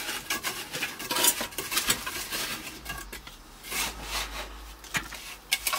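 Fairly dry sand-and-cement mortar being scraped and pushed under the edge of a ceramic squat toilet pan, with irregular gritty scrapes and light clinks.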